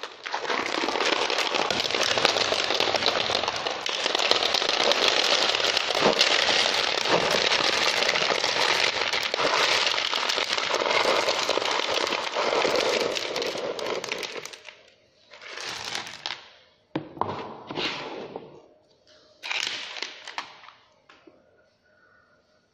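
About 3.5 kg of small stones poured from a plastic crate into a bait boat's hopper, a continuous rattling clatter for about fourteen seconds, then three shorter rattles a few seconds apart.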